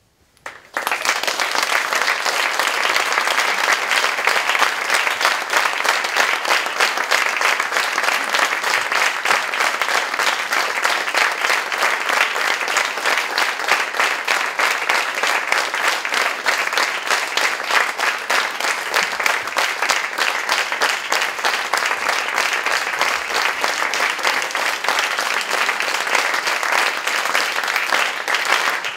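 Theatre audience applauding steadily. The applause breaks out suddenly out of near silence about half a second in, as the performers take their curtain-call bow.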